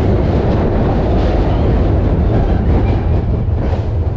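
Big Thunder Mountain Railroad mine-train roller coaster running along its track: a loud, steady rumble of the train's wheels on the rails.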